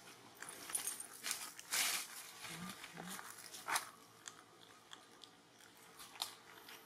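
Dry fallen leaves crunching and rustling in short, irregular crackles, loudest about two seconds in.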